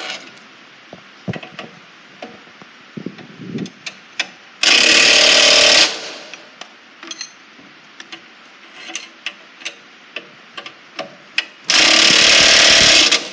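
Cordless impact wrench hammering in two bursts of about a second each, about five and twelve seconds in, as it snugs the bolts of a John Deere 7000 planter's closing wheel arm tight. Light clicks and knocks of the tool and socket being handled come between the bursts.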